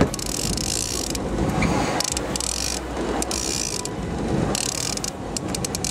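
Line-counter trolling reel ratcheting under load while a king salmon is fought on wire line. The rasping clicks come in spells of about half a second to a second, with a quick run of separate clicks near the end.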